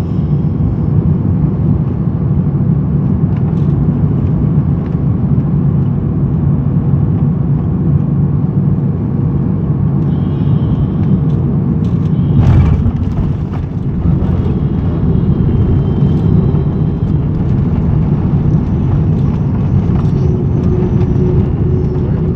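Airbus A330-300 heard from inside the cabin on landing: a steady, loud low rumble of engines and airflow. A single loud thump about twelve seconds in marks the touchdown, and the rumble carries on through the rollout with the spoilers raised.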